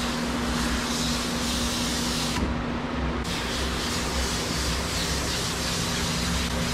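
Water hissing from a hose's shampoo-sprayer nozzle onto a wet, soapy dog and the stainless-steel tub, with a brief break about two and a half seconds in. A steady motor hum runs underneath.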